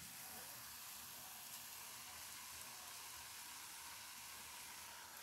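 Faint, steady sizzling of egg, onion and chilli flakes frying in oil in an aluminium pan.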